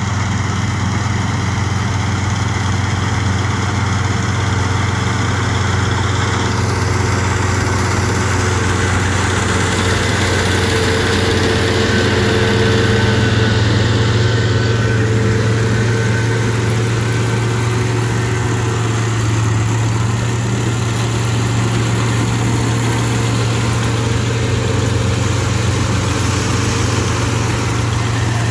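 Kubota SR55 Pro mini combine harvester running steadily with its diesel engine under load while cutting paddy, swelling slightly in loudness about halfway through.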